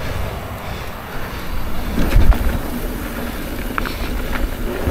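Trek Rail electric mountain bike being ridden down a dirt trail: rolling tyre and trail noise with wind buffeting the action-camera microphone. A heavier thump comes about two seconds in, and a few sharp clicks near the end.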